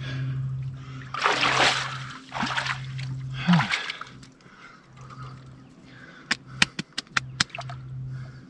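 Lake water splashing as a person moves and swims in it, with three loud splashes in the first four seconds. A quick run of sharp clicks follows near the end.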